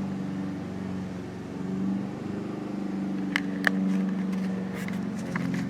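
A steady low motor hum that wavers slightly in level, with two sharp clicks about three and a half seconds in.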